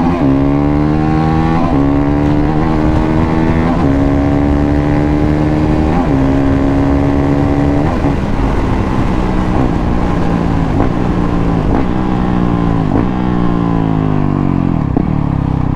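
2019 Honda CRF450L single-cylinder four-stroke with an aftermarket FMF full racing exhaust, accelerating hard through the gears: the engine note climbs and drops at each upshift, about five times in the first eight seconds. Then the revs fall away as the bike slows down.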